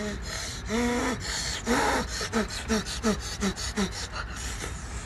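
A man's short voiced gasps while eating noodles: a quick run of about six brief, falling 'hah' breaths at roughly three a second in the middle.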